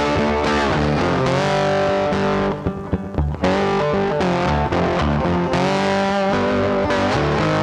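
Background music: distorted electric guitar playing, with a brief break a little before the middle.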